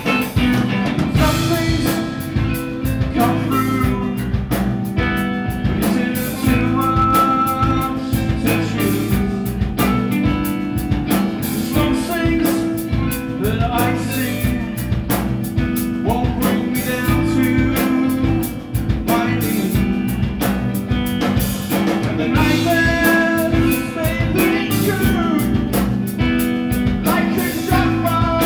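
Live rock band playing: electric guitars and bass guitar over drums, with a man singing.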